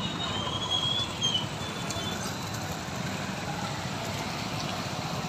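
Busy street traffic: a steady rumble of motorcycles and other vehicles on a crowded road, with a brief high whistling tone about a second in.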